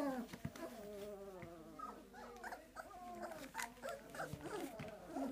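A litter of four-week-old puppies whimpering and whining, several wavering cries overlapping at once.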